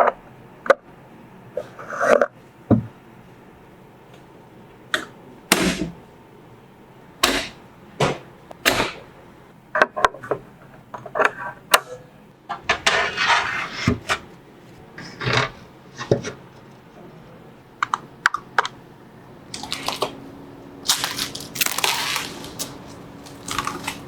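Computer parts being handled and fitted: irregular sharp clicks, knocks and short scrapes of hard plastic and metal pieces. A faint low steady hum comes in near the end.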